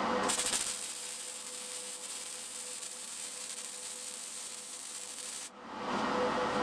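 MIG welder running a weld bead along the edge of a steel square-tube end cap: a steady hiss of the arc for about five seconds that cuts off suddenly near the end.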